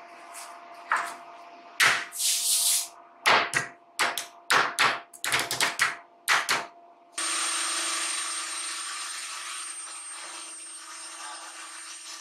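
A gloved hand sweeping dust off a solid-timber panel: about a dozen quick swishes and knocks. About seven seconds in, the sound cuts to a steady running shop machine with a thin high whine, slowly fading.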